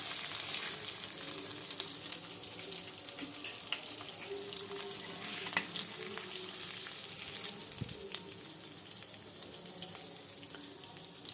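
Fish pieces frying in hot oil: a steady crackling sizzle with many small scattered pops.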